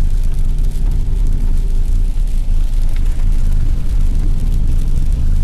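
Steady low rumble of a vehicle driving on a slushy, snow-covered road, heard from inside the cabin, with a faint steady hum during the first two seconds.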